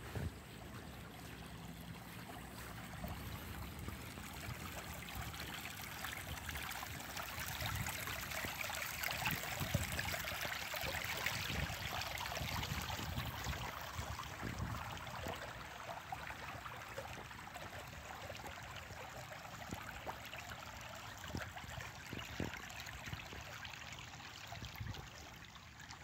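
Shallow creek trickling and gurgling along its bed, as a steady hiss of running water that swells louder through the middle and eases off again.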